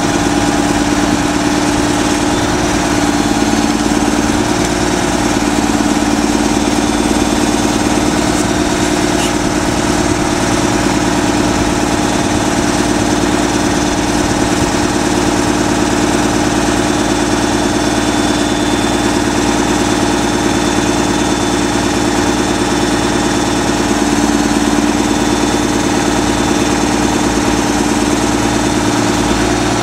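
Mack Granite garbage truck's diesel engine running steadily at idle while it powers the hydraulic knuckle-boom crane lifting a loaded Bagster bag. The steady hum shifts in pitch briefly a few times.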